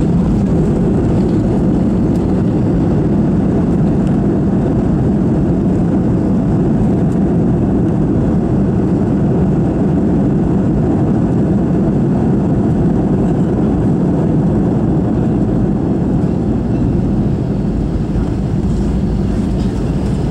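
Jet airliner heard inside the cabin during the landing rollout: a loud, steady rumble that eases a little near the end.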